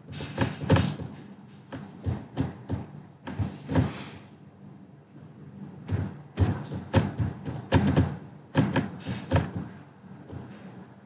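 Irregular knocks and clicks coming in quick bunches of several a second, with a short hiss about four seconds in.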